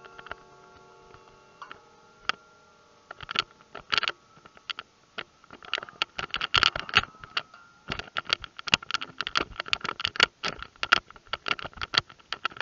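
Irregular clicking and tapping, a few at first and then a rapid, uneven run from about three seconds in, over a faint steady ringing tone.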